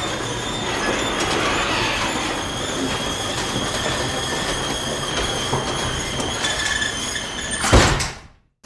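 Garage door closing: a steady mechanical running noise with a faint high whine as it travels, ending near the end in one loud thump, after which the sound cuts out abruptly.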